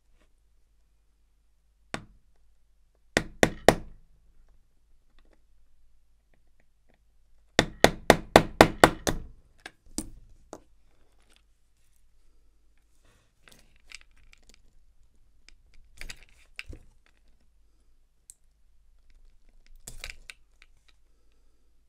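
Sharp knocks on a hard surface. A single knock comes first, then three quick ones, then a few seconds later a fast run of about eight at roughly five a second. Fainter clicks and handling noises follow.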